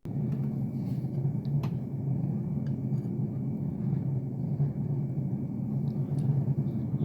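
Steady low rumbling hum with a few faint clicks.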